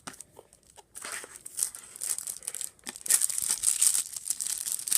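Phone-box packaging being handled and rustled: a few small clicks, then crinkling that builds from about a second in and is loudest near the end.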